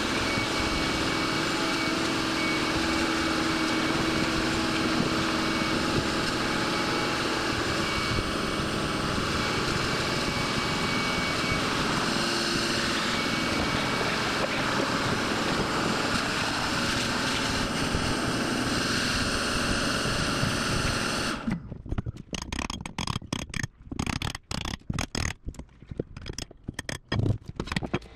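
Shop vacuum running steadily while its hose sucks up rotted plywood debris. It shuts off abruptly about three quarters of the way through, leaving irregular knocks and clatter of wood debris being handled.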